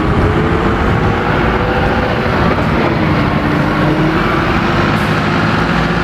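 Steady vehicle engine rumble with a faint humming tone that drifts slightly in pitch.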